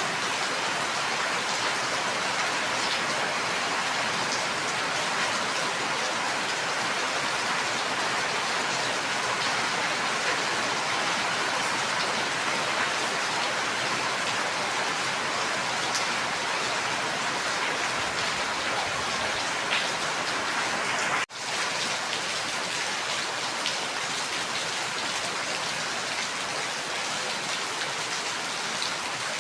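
Steady, dense rainfall, an even hiss with many small drop patters. About two-thirds of the way through, the sound briefly cuts out for a split second, then resumes.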